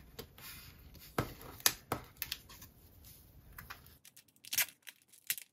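Glossy photo cards being handled and set down on a table, then a trading-card pack being picked up and opened: a scatter of sharp clicks and taps with light rustling.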